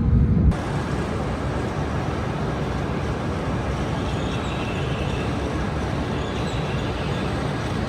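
E5 series Shinkansen train departing: steady running noise with no announcement, after an abrupt cut from a louder low rumble about half a second in.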